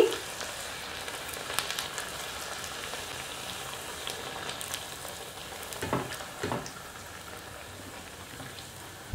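A puri deep-frying in hot vegetable oil gives a steady sizzle with fine crackles as a slotted skimmer presses it into the oil so it puffs up. There are two louder spits about six seconds in.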